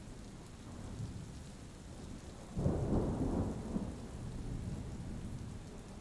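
Rain sound effect falling steadily, with a low rumble of thunder swelling up about halfway through and slowly dying away.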